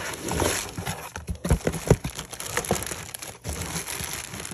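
Loose jewelry pieces and their plastic packaging being dumped out of a shipping box: crinkling and rustling, with scattered sharp clicks and clinks, the loudest about a second and a half to two seconds in.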